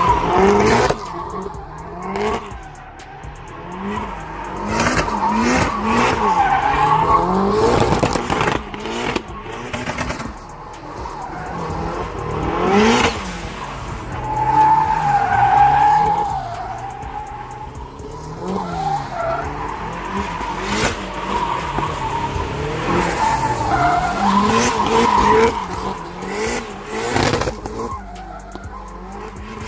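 Nissan 180SX's turbocharged SR20DET four-cylinder engine revving up and down again and again through drifts, with the rear tyres squealing and skidding. The squeal is loudest about halfway through.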